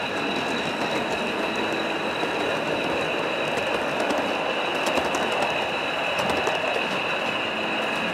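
A 0 gauge model diesel locomotive and its coaches rolling along the track, with a continuous rumble of wheels and scattered small clicks over the rail joints. A steady high-pitched squeal runs over it.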